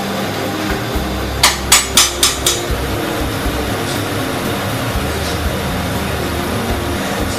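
A spoon tapped about five times in quick succession against the rim of a stainless steel pan after stirring rice, over a steady background hiss.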